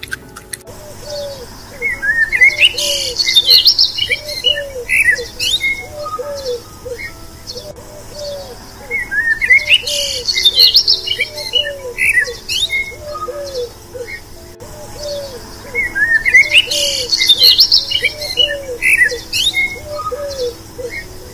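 Birds chirping and twittering in bursts, over a lower call that repeats steadily about one to two times a second. The same stretch of birdsong comes round about every seven seconds: a looped recording.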